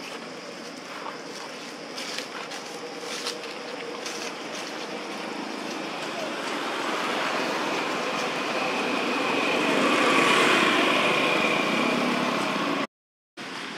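A motor vehicle passing at a distance: a steady engine-and-road noise that swells to its loudest about ten seconds in and then eases off. It breaks for a moment of silence near the end.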